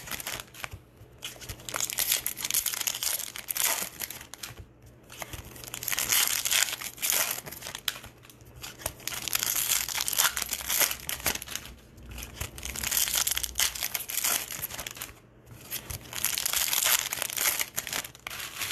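Plastic wrappers of baseball trading-card packs crinkling and tearing as they are ripped open and handled. The crinkling comes in repeated bouts separated by short pauses.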